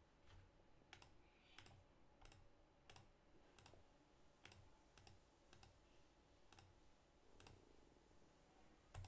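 Faint computer mouse clicks, about a dozen single clicks at a fairly even pace of roughly one every two-thirds of a second.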